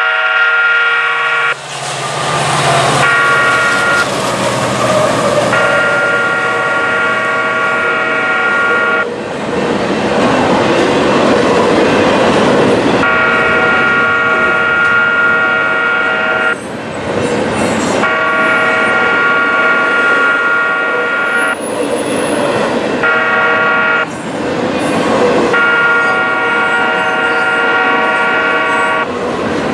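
Freight locomotive horn blowing repeated long blasts with one short blast near the end, the long-long-short-long grade-crossing signal, as the train passes close by. Between blasts the locomotives' engines and the rattle of the double-stacked container cars fill in.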